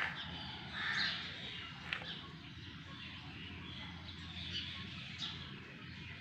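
Birds calling a few times in short, harsh calls, over a steady low hum.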